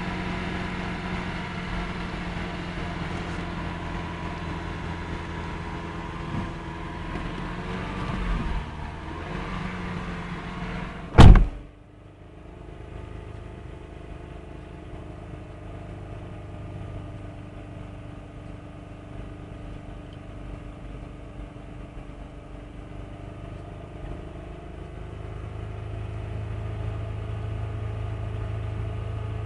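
Car engine idling steadily. A single loud sharp thump about eleven seconds in, after which the running sound is quieter and duller; a low hum grows slightly near the end.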